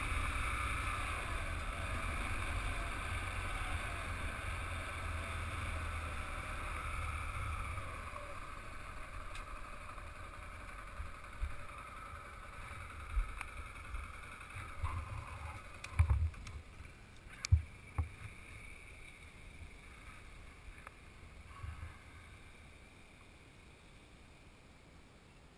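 Motorcycle riding on a gravel road: steady engine and wind noise that slowly dies away as the bike slows to a stop, with a few sharp knocks and thumps about two-thirds of the way through, then quiet.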